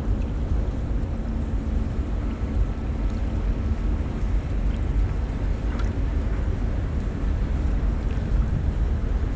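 Steady low rumble from a passing Great Lakes freighter's EMD diesel engines, with a faint steady hum over it, mixed with wind buffeting the microphone.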